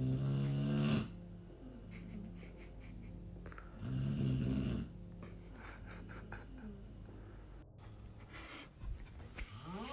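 Snoring: two loud, low snores, one at the start and one about four seconds in, each lasting about a second, with quieter snoring between.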